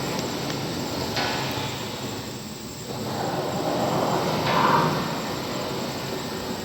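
Factory machine grinding and scraping as its hook rubs against the mechanism, making an eerie, horror-like groan. It swells and fades in slow waves, with a sudden rise about a second in and a louder, higher wail a little past the middle.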